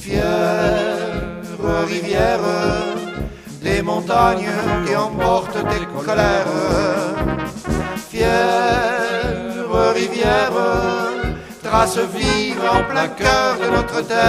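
Alpine folk band playing an instrumental brass passage: trumpet and trombone melody lines with wavering held notes over a steady oom-pah bass beat.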